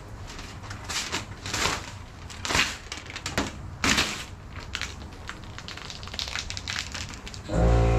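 A large sheet of gloss metallic vinyl wrap film crinkling and crackling in irregular bursts as it is lifted, pulled and laid back onto a car hood. Music comes in loudly near the end.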